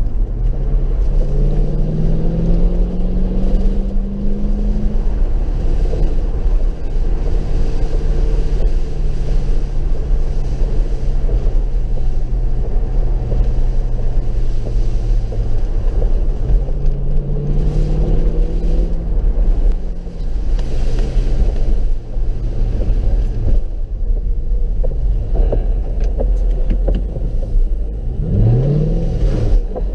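Mercedes SLK 55 AMG's V8 engine driving along a wet road, heard from inside the car over a steady low rumble of road and tyre noise. The engine note rises under acceleration near the start and again a little past halfway, and gives a quick rev up and down near the end.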